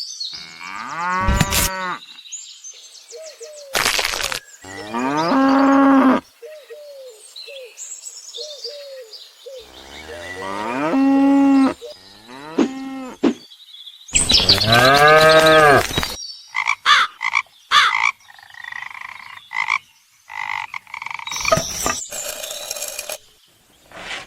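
A string of sound-effect clips led by several long cow moos, each one to two seconds long and falling in pitch. Short clicks and other brief effect sounds come between them.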